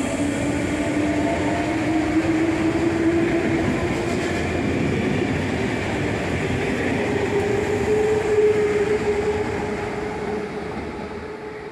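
RER B MI79 electric train pulling away from the platform, its traction motors whining higher in pitch as it accelerates, over the rumble of wheels on the track. The sound fades near the end as the train draws away.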